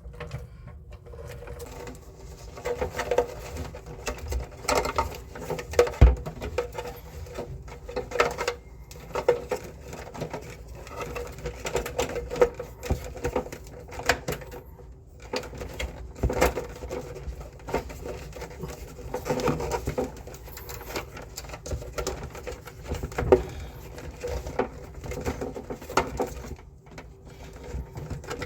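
Irregular clicks, taps and knocks of hand work on an air conditioner's indoor unit parts, over a faint steady hum.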